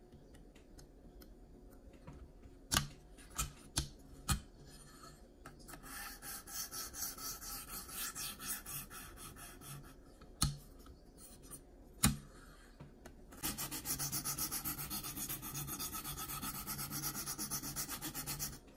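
A sharpening stone on a KME guided-rod sharpener is stroked lightly and quickly along the edge of a CPM 20CV steel blade in two runs of even, rasping strokes, as a very light pass to knock down the burr. A few sharp clicks come in between.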